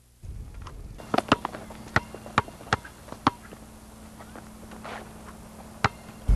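A basketball bouncing hard on an outdoor court: about six sharp bounces in an uneven run, then a single bounce near the end.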